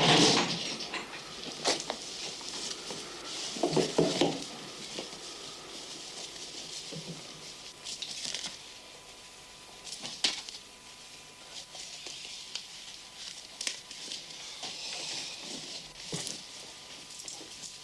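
Clothing and bedclothes rustling as a limp body is handled, with scattered small knocks and clicks. A louder sudden noise comes right at the start, and another about four seconds in.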